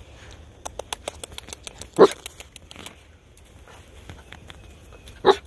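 Husky puppies scrabbling and scuffling at close range, with a quick run of sharp clicking scratches, and two short yelps, one about two seconds in and one near the end.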